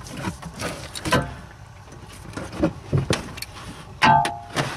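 Scattered clicks and knocks of plastic and metal parts as a ball socket is pushed by hand onto its ball stud, the loudest knock about four seconds in, followed by a short ringing tone.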